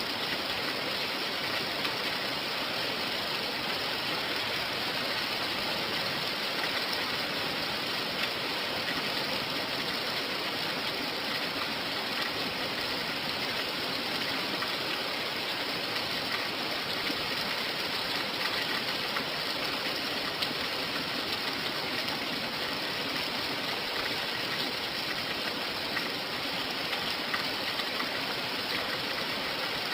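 Steady rain, an even unbroken hiss of falling water.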